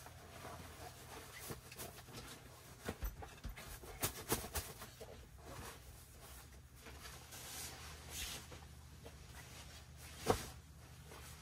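Handling noise from a self-inflating sleeping pad being carried and unrolled on a carpeted floor: scattered knocks and rustles, a small cluster of them a few seconds in and one sharp knock near the end, over a faint steady low hum.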